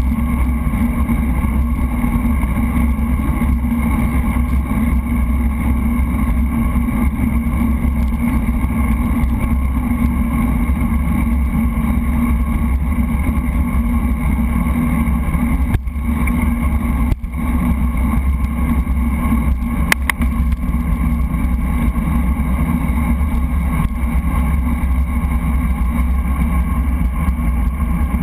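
Steady wind and road rumble on a GoPro action camera riding along on a road bicycle at speed, with two brief dips in level a little past halfway.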